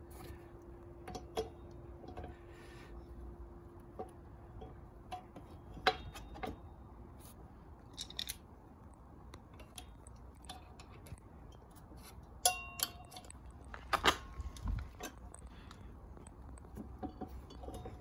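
Metal parts of a motorcycle rear wheel assembly clicking and clinking as the wheel and brake disc are worked into place between the caliper pads. There are scattered light clicks, with a ringing metallic clink and a sharper knock a little past halfway.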